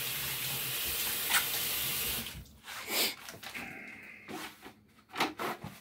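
Kitchen faucet running into the sink for about two seconds, then shut off, followed by a few brief knocks.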